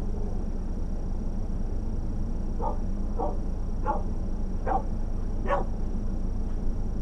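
A dog barking five times, a little under a second apart, over a steady low hum.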